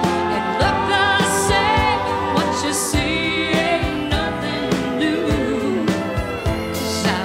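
Live country music: a band with drums playing under a woman's wordless, sustained vocal with vibrato.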